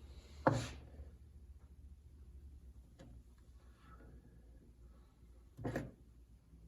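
Two brief handling knocks from the hydraulic cylinder parts being worked on, one about half a second in and one near the end, with a faint click between them over a low steady hum.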